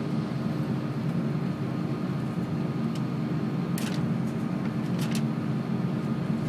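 Steady engine and cabin noise inside an Airbus A330-300 taxiing, a constant low drone with a faint steady hum over it. A few light clicks come around the middle.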